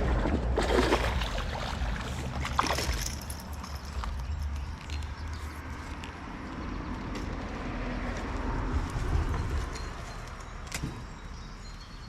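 Wind buffeting the microphone over the steady rush of moving creek water, with a few short knocks.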